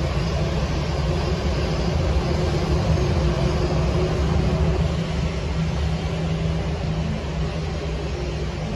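Steady low mechanical rumble with a droning hum.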